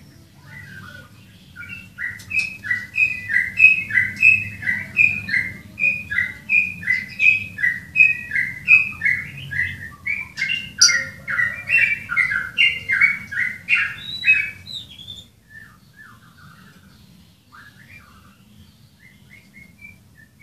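A bird chirping in a long, fast run of short repeated notes from about two seconds in, stopping about fifteen seconds in, after which only a few faint scattered chirps remain.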